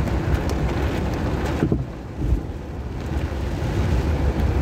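A car driving through muddy floodwater, heard from inside the cabin: a steady low rumble and rush of water that eases briefly about two seconds in.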